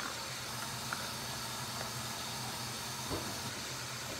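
Steady background hiss with a faint low hum, broken only by a couple of soft small ticks: room tone.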